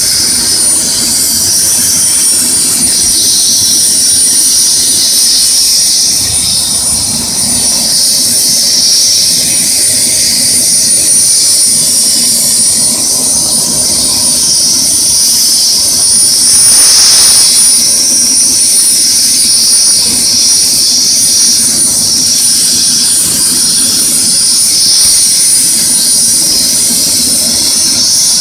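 Medical helicopter's turbine engine and main rotor running at lift-off power as it rises off the helipad and hovers: a loud, steady high-pitched turbine whine over the rotor's rush.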